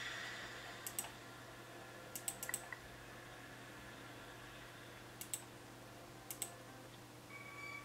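Computer mouse button clicking: four quick pairs of sharp clicks spread a second or more apart, over a faint steady low hum.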